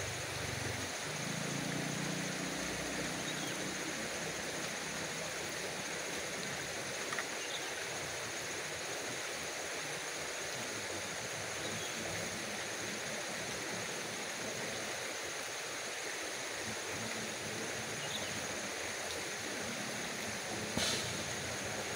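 Steady rush of river water, with a few faint clicks and one sharp knock near the end.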